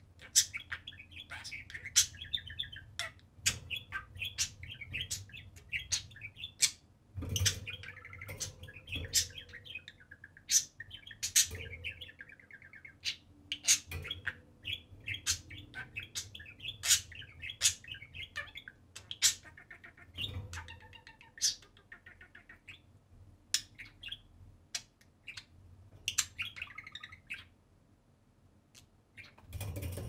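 Pet budgerigars chattering: a continuous, scratchy warble shot through with many sharp chirps and clicks, tailing off near the end.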